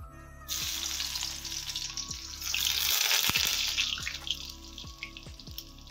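Tempering spices (cumin, garlic and asafoetida) sizzling as they go into hot mustard oil for a tadka. The sizzle starts suddenly about half a second in, is loudest around the middle, then dies down.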